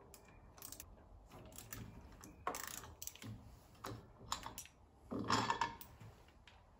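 A hand wrench working on a motorcycle handlebar mirror mount: scattered light metal clicks and clinks as the mirror is loosened and lifted off. The clicks are louder about two and a half seconds in and again just after five seconds.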